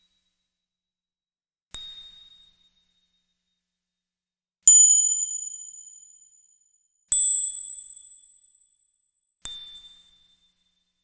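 Four bright, high-pitched analog-synthesizer dings, made from a sawtooth and a triangle wave shaped by a quick filter attack and decay. Each one starts sharply and fades away over a second or two, a couple of seconds apart, and each sits at a slightly different pitch.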